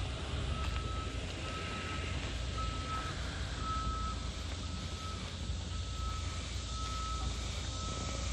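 A backup alarm beeping steadily, about one beep a second, each beep a single high tone, over the low steady running of a heavy diesel engine at idle.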